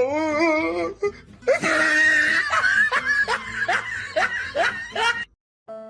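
A voice wailing with a wobbling pitch, then a stretch of laughter in repeated rising "ha" sounds, about two a second. It cuts off, and held string-music notes begin just before the end.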